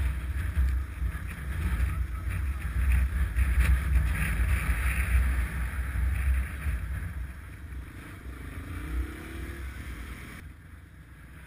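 Dual-sport motorcycle engine running at trail speed, heard from on the bike, with wind rushing over the microphone. It grows quieter over the last few seconds.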